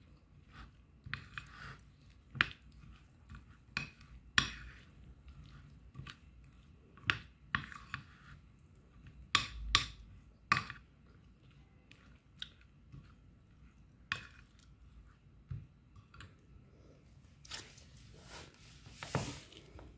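Metal spoon stirring and scraping a gritty paste of crumbs and chocolate spread on a ceramic plate, with irregular sharp clinks against the plate and a longer scrape near the end.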